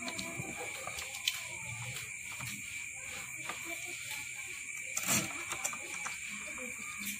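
Light handling clicks from hands working at a coil-winding jig and transformer bobbin, with a thump about five seconds in, over a steady high-pitched whine.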